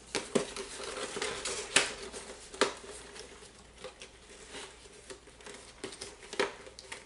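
Plastic product parts and packaging being handled by hand: scattered clicks and taps with light rustling, the sharpest about two seconds in and again just before three. A faint steady hum runs underneath.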